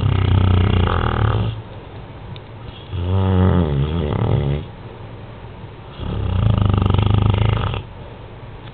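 A beagle snoring in its sleep: three long, buzzing snores about three seconds apart, with quieter breathing between them.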